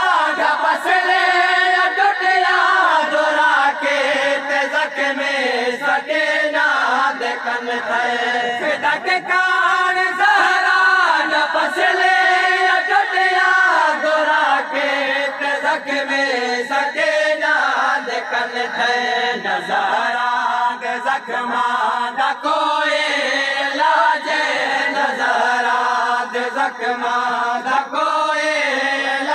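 Men's voices chanting a noha, a Shia mourning lament, together in a wavering, drawn-out melody. The singing goes on without a break.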